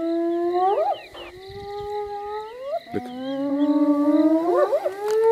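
Spotted hyenas calling: about four long, drawn-out calls with several voices overlapping, each holding a low pitch and then sliding sharply upward at its end.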